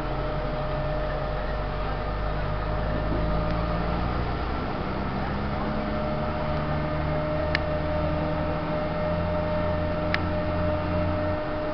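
Engine running steadily under a broad hiss. Its low drone changes pitch about a third of the way in, and part of it stops near the end. Two short clicks come in the second half.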